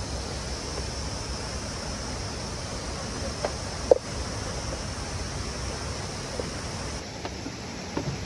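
Steady rushing of flowing river water. A few short pitched sounds rise above it, the loudest about four seconds in.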